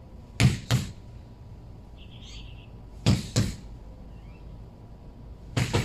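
Punches landing on a hanging tyre: dull thuds in quick pairs about a third of a second apart, three pairs in all.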